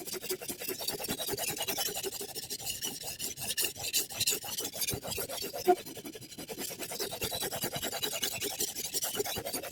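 Chef's knife edge scraping across a diamond sharpening plate in quick, continuous back-and-forth strokes, with a single sharper tick a little over halfway through.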